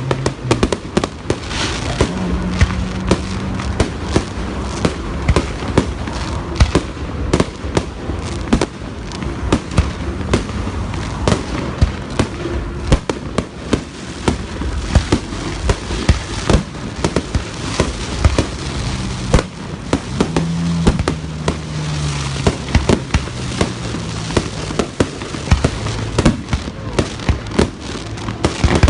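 Assorted fireworks going off continuously: a dense string of sharp bangs, several a second, over a constant rushing noise.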